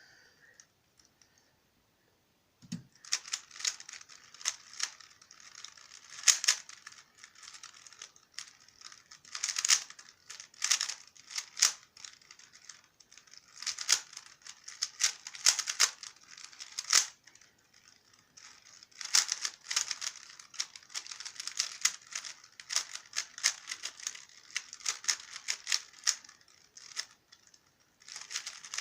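Yuxin Kylin V2 3x3 Rubik's cube being turned fast through a layer-by-layer solve: rapid plastic clicking and rattling of the layers in bursts, with short pauses between sequences. A soft knock about three seconds in, just before the turning starts.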